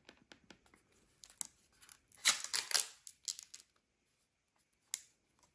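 Packaging being handled as the video doorbell is taken out of it. Light rustles and clicks, with a louder stretch of crinkling and tearing about two seconds in and a single sharp click near the end.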